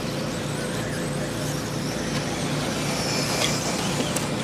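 Radio-controlled 2WD buggies running on an offroad race track, heard as steady mixed noise over a constant low hum.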